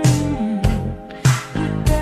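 Slowed-down, reverb-heavy 1983 Japanese city-pop song: a female voice sings the wordless 'hu, hu, hu' line over a band, with a drum hit a little under twice a second.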